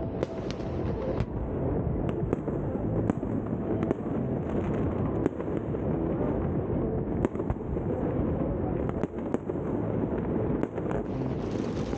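Fireworks going off over a river: a dozen or more sharp pops and bangs at irregular intervals, over a steady low rumble.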